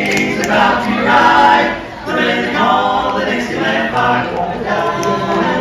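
Barbershop quartet of male voices singing a cappella in close harmony, with a brief drop in loudness about two seconds in.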